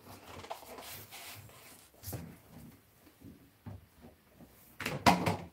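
Faint handling noise: a half-filled plastic water reservoir rubbing and knocking lightly as it is worked down into the back corner, with a louder noise near the end.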